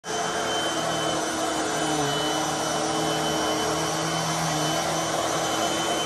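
Hoover WindTunnel 3 High Performance Pet upright vacuum running while pushed over carpet: a steady rushing sound with a thin, steady high whine over it.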